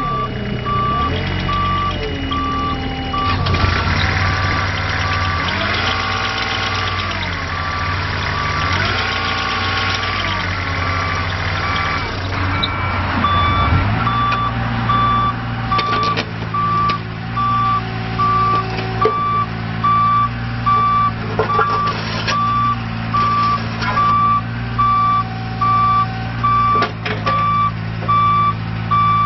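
Mini excavator's Isuzu diesel engine running, its pitch sagging and recovering several times under hydraulic load in the first half, over a beeping alarm that repeats about once a second all through and sounds louder in the second half.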